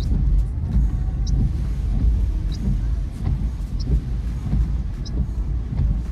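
Car driving in the rain, heard from inside: a steady low road rumble, with a short high squeak repeating about every second and a quarter.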